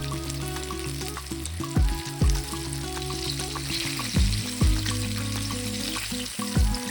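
Chicken wings frying in hot oil, a steady sizzling hiss. Background music with a deep beat plays under it, its drum hits coming in pairs.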